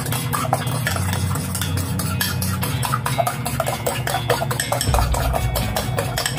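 Egg being beaten with a metal utensil in a ceramic bowl: rapid clinking of metal against porcelain, about five or six strokes a second.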